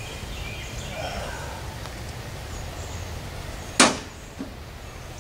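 A single sharp, loud knock as gear is loaded onto the pickup, with a fainter tap about half a second later.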